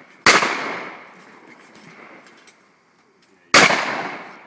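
Shotgun fired twice at clay targets, about three seconds apart. Each shot is a sharp blast with a fading echo.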